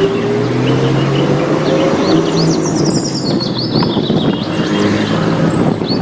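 A car engine runs, its pitch rising through the first two seconds, with birds chirping over it from about two seconds in.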